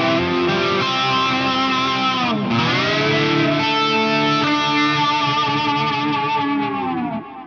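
Electric guitar through a Line 6 Helix dirty ambient preset, playing sustained overdriven chords with a wash of effects. About two and a half seconds in, the pitch dips sharply and swoops back up into a new chord, and the sound drops away near the end.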